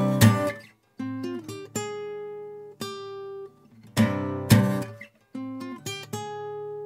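Home-recorded acoustic guitar: two strummed chords at the start, then single picked notes left to ring, two more strummed chords about four seconds in, then more picked notes.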